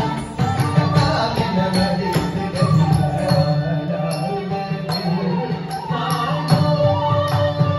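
Carnatic devotional song accompanying a classical dance: a singer's voice over steady sustained tones, with percussion keeping the beat.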